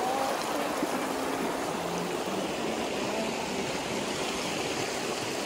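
River water rushing in a steady, even wash.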